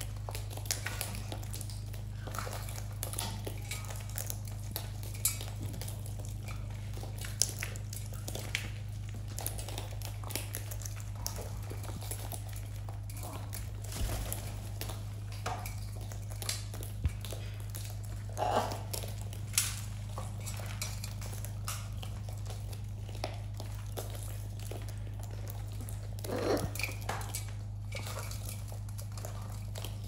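Macaws and a cockatoo eating seed from a steel feeding tray: beaks tapping and scraping the metal and rattling seed in irregular small clicks, with crunching of husks. Underneath is a steady low hum.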